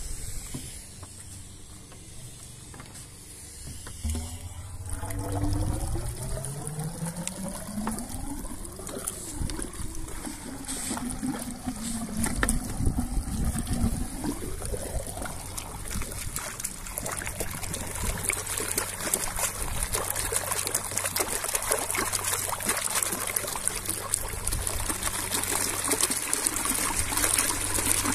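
Homemade airlift (mammoth) pump in a pond: air bubbles gurgle up the submerged drain pipe with a wavering tone that rises in pitch, then the pump gets going and water gushes and splashes out of the outlet, growing louder toward the end.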